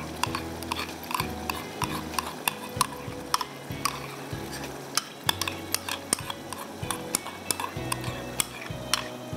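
A cooking utensil clicking and scraping against a pot in many irregular light taps, over soft background music with low bass notes.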